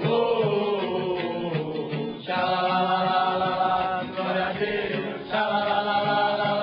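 A group of men singing together in unison, holding long notes.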